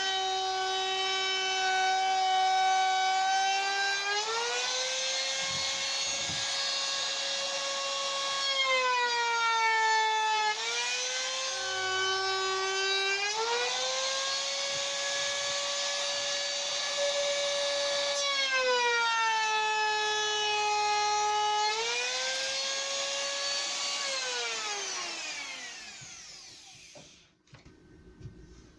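Electric router whining as it cuts a round-over along the edge of an 18mm moisture-resistant MDF board, its pitch dipping and rising several times as the load on the bit changes. Near the end it is switched off and winds down, its pitch falling until it stops.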